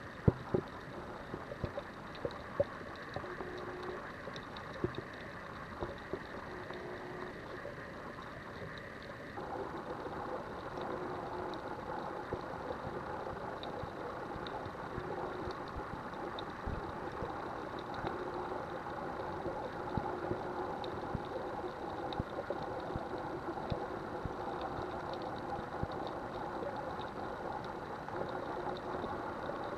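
Muffled underwater sound: a steady engine hum carried through the water, with a few sharp clicks in the first few seconds. The hum changes and grows a little louder about nine seconds in.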